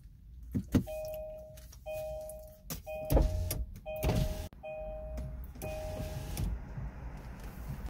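A car horn beeping six times at an even pace, a little under a second apart, two notes sounding together in each beep. A couple of dull thumps come in the middle.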